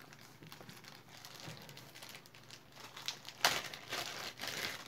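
Crinkling, rustling handling noise with small clicks, louder in a few bursts from about three and a half seconds in, as the bangles are handled and put away.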